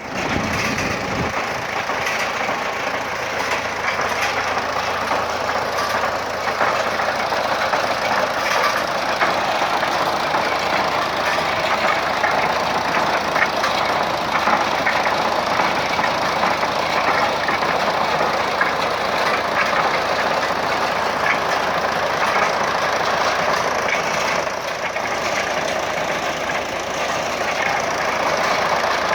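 Engine of a water-well drilling rig running steadily while drilling, with a constant clatter of small knocks.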